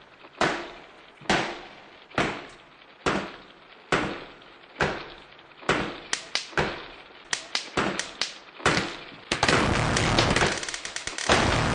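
Sharp percussive hits, about one a second, each dying away quickly; from about six seconds in they come faster and in clusters, and a dense noisy wash takes over near the end.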